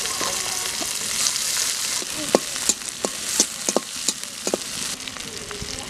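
Sliced onions sizzling in hot oil in a metal kadai. From about two seconds in, a metal spatula stirring them clinks and scrapes against the pan several times.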